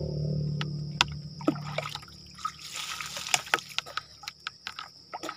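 Water being poured and splashed over a person bathing from a basin, dribbling and dripping with a string of sharp splashes and clicks. A steady low hum fades out about two seconds in.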